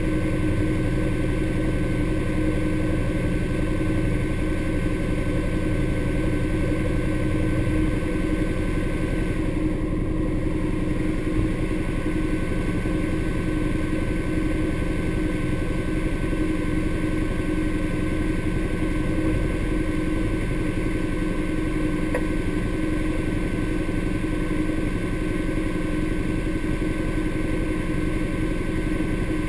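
Honda Pioneer 1000 side-by-side's parallel-twin engine idling steadily while the machine stands still.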